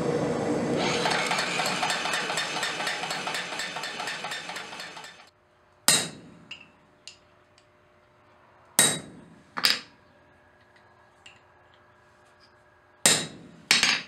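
Homemade anvil-mounted power hammer with a 12-pound ram beating hot steel in a fast, even rhythm of about five or six blows a second over its motor's hum, growing fainter before stopping suddenly about five seconds in. Then a hand hammer strikes a steel punch on a small block on the anvil five times in sharp single blows, some in quick pairs, with light clinks of the punch being set between them.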